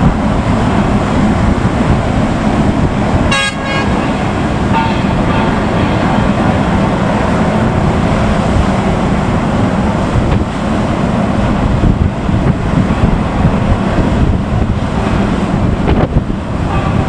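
Steady rushing noise with a constant low engine hum, broken about three and a half seconds in by a short horn toot, with a fainter horn tone just after.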